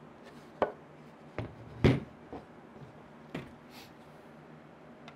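Several knocks and clunks of a black metal base plate being handled, flipped and stood on edge on a table, the loudest about two seconds in.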